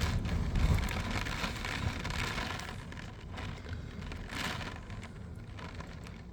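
Storm wind and rain heard from inside a closed car: a low, noisy rumble with faint patters that gradually dies down as the gust passes.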